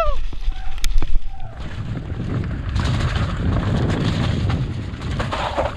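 Mountain bike descending a rough dirt trail at speed: wind buffeting the microphone and tyres rolling over the ground, with sharp knocks and rattles from the bike in the first second or so, then a steady rumbling rush.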